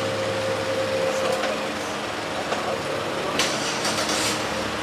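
Street background noise: a steady low mechanical hum with a faint held tone in the first half. Two short hissing bursts come about three and a half and four seconds in.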